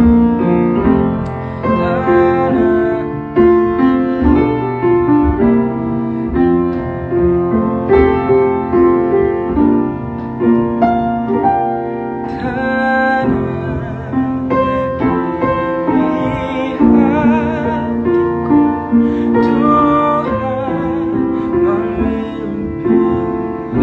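Piano accompaniment under a man singing a gospel song, with long held notes that waver with vibrato in the second half.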